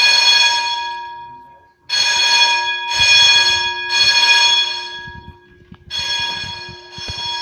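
Simplex fire alarm bell ringing loudly in runs of about three one-second rings. Each run fades away as the gong rings down, with a brief silence before the next run starts.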